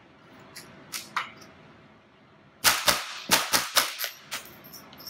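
Ruger 10/22 semi-automatic .22 LR rifle with a Gemtech integrally suppressed barrel firing subsonic rounds: about five rapid suppressed shots, starting about two and a half seconds in and spread over roughly a second and a half. Two faint clicks come about a second in.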